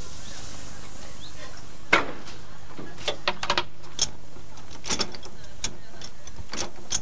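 Sharp metallic clanks and clinks from the coupling between a narrow-gauge steam locomotive and its coach being handled. There is a loud clank about two seconds in, then a string of lighter clinks, some in quick pairs. All of it sits over a steady low hum.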